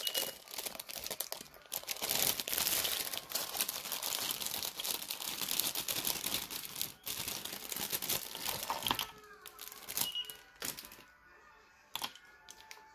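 Clear plastic shrink-wrap crinkling and tearing as it is peeled off small plastic glitter jars. It stops about nine seconds in, leaving a few light clicks of jars being set down.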